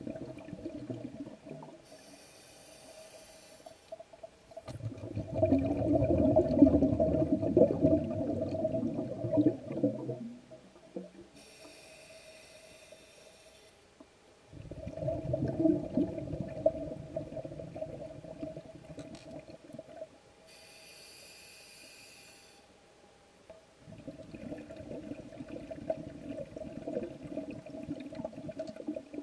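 Diver breathing through a scuba regulator, heard underwater: three breaths, each a short hissing inhale followed by a long rumble of exhaled bubbles, about every nine or ten seconds.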